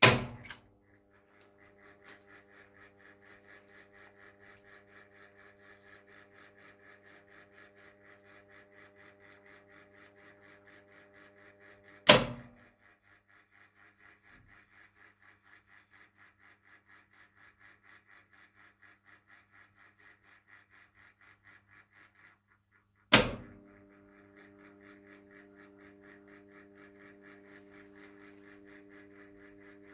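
Arndt MPK 02 fire-alarm program switching unit running its test cycle: a loud switching clunk three times, roughly every 12 seconds, as it steps through the fire-alarm on/off pattern. Between the clunks there is a faint fast ticking, about three a second, over a steady mains hum, and the hum is stronger while the switched circuit is on.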